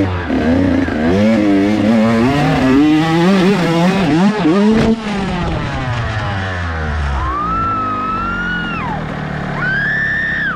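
Dirt bike engine revving hard up and down, the uncontrolled throttle of a whiskey-throttle crash, then a sudden impact about five seconds in as the bike hits a tree. The engine keeps running lower afterwards while the fallen rider lets out two long, high-pitched cries.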